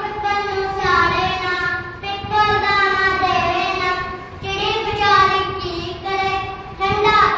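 A child singing solo in a high voice, holding long notes that glide between pitches.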